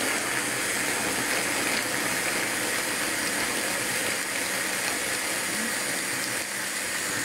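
Electric hand blender's motor running steadily on its chopper bowl, the blades chopping tomatoes, green pepper and almonds down to a purée for gazpacho.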